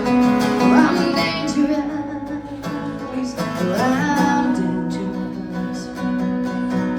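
Live acoustic guitar strummed and plucked, with a woman singing over it in two rising, held notes, about a second and four seconds in.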